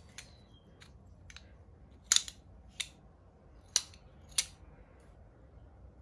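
Sharp metallic clicks of a hand-forged flintlock lock's hammer (cock) being worked back and forth on the lock plate by hand, several clicks spread over a few seconds. The hammer is being test-fitted and still has some play in it.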